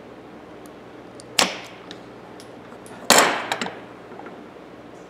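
Two sharp snips of shears cutting through thick heat shrink tubing, about a second and a half apart, the second one louder, followed by a few light clicks.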